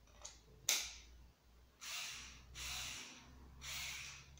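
A sharp plastic click as a paper-cutter attachment snaps onto a cordless screwdriver's chuck, with a fainter click just before it. Three short breathy hisses follow about a second apart.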